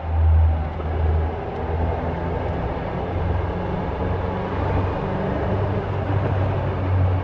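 Caterham Super Seven 1600's four-cylinder engine running at a steady speed: a low drone that swells and fades around the first second, then holds even, over a steady hiss.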